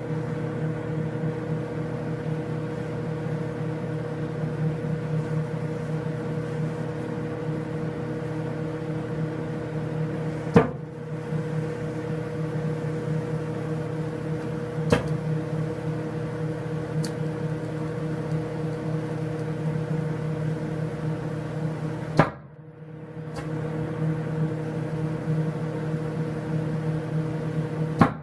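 Microwave oven running with a steady hum while heating giant water beads (Orbeez). A few sharp pops cut through it, about ten, fifteen and twenty-two seconds in.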